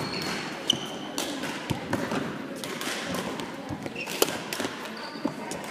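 Badminton rally: rackets striking the shuttlecock with sharp clicks and the players' feet thudding on the court, with short high squeaks of shoes on the floor.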